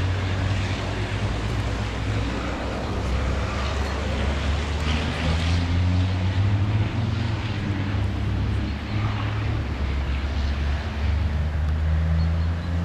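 Scania V8 diesel truck engine running at low revs during slow parking manoeuvres, its low steady hum shifting up and down in pitch a few times.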